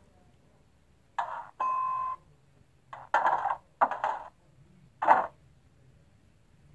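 DCC sound from a sound-fitted model diesel locomotive on a model railway layout: several short, sharp clanks and a brief steady bell-like tone about one and a half seconds in, over a faint low hum.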